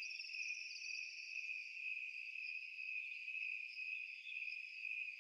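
Crickets chirping in a steady, unbroken high trill.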